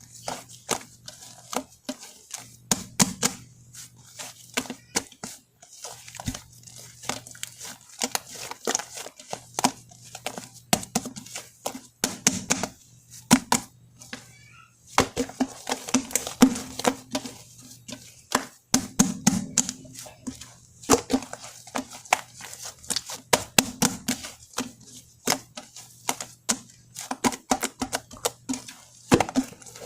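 Shaving-foam slime being squished and kneaded by hand: dense, irregular wet clicks and crackling pops.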